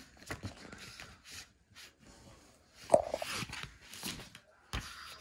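Fabric rubbing and rustling against the microphone as the phone is moved over cloth: scattered soft scrapes, a sharp click about three seconds in and a thump near the end.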